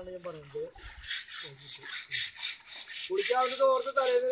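Rapid rasping scrubbing strokes, about four a second, of a hand scrubber rubbing down an elephant's wet hide; the strokes grow louder about a second in. A person's voice joins near the end.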